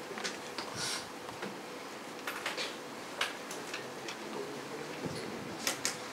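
Room tone with a steady faint hum and a handful of short, sharp clicks and taps at irregular intervals, two of them close together near the end.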